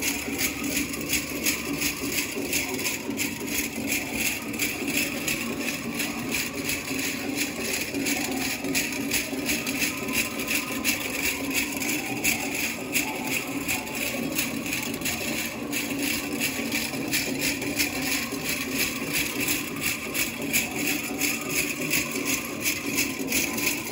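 Metal cones of a jingle dress jingling as the dancer steps and hops, over a powwow drum song with a steady, quick beat.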